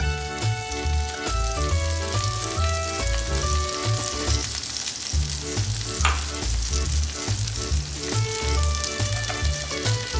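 Butter melting and foaming in hot olive oil in a cast-iron skillet, sizzling steadily, over background music with a bass line.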